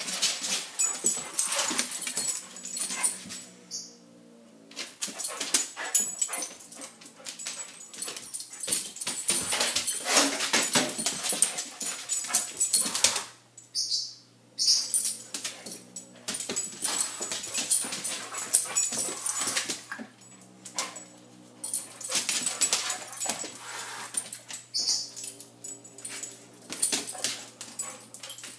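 German Shorthaired Pointer sniffing and whimpering in bouts, with short pauses between them.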